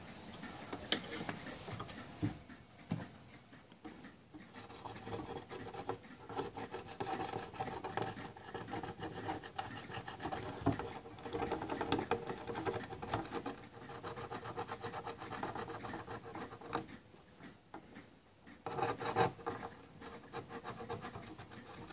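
Cotton pad soaked in rubbing alcohol scrubbing back and forth along the cutting-strip channel of a Silhouette cutting machine, working off the old strip's adhesive residue: an uneven scratchy rubbing that pauses briefly a few seconds before the end, then picks up again.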